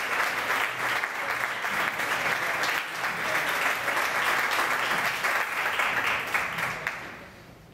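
Small audience applauding, a dense patter of many hands clapping that dies away near the end.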